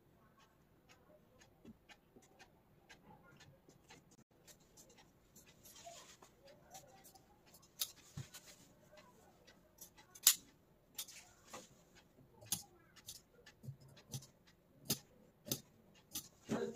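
Tailoring scissors and satin fabric being handled at a dress form: irregular sharp clicks and snips that come more often and louder in the second half, over soft fabric rustling.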